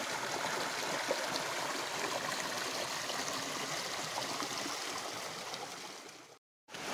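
Shallow, fast stream running over rocks and boulders: a steady rush and gurgle of water that fades and cuts off about six seconds in.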